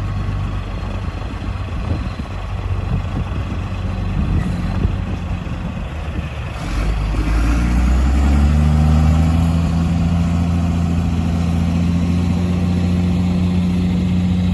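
JCB 718 articulated dump truck's diesel engine running steadily while the tipper body lowers, then revving up about seven seconds in and holding a louder, steady higher note as the truck drives off.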